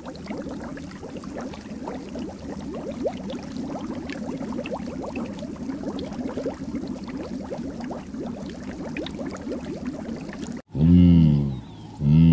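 A dense, steady patter of many small, quick sounds, then after a brief break two loud, long mooing calls from cattle near the end.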